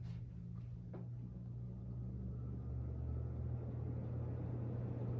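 Antique 1941 ceiling fan running on high: a steady motor hum with a rush of moving air from the blades that slowly grows louder as the fan comes up to speed.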